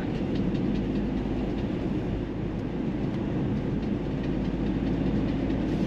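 Steady road and tyre noise with engine hum inside a moving car's cabin, a low rumble that holds level throughout.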